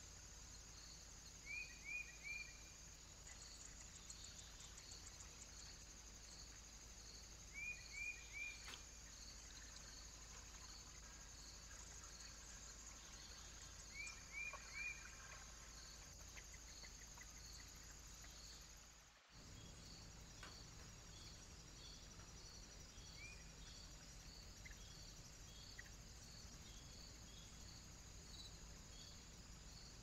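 Faint, steady chirping of crickets or bush crickets in an even, pulsing rhythm. A small bird gives three quick high notes, three times in the first half. The sound drops out briefly about two-thirds of the way through.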